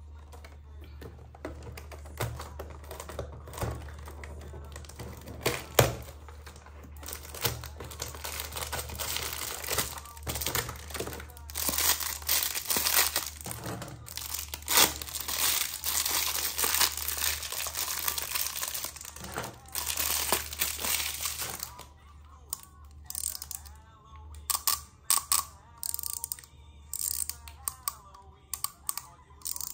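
Wrapping crinkling and tearing as small packages are opened, with sharp clicks and taps of small items being handled, over a steady low hum.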